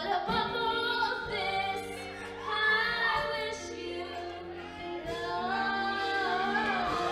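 A female voice singing a sliding melody in a show-choir number, over instrumental accompaniment that holds steady chords and steps from one chord to the next.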